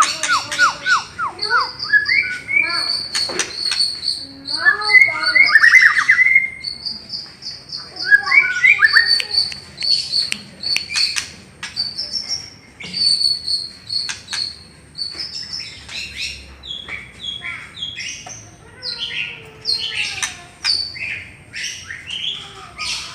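White-rumped shama (murai batu) singing a long, varied song of repeated high whistled notes, quick trills and rising and falling phrases.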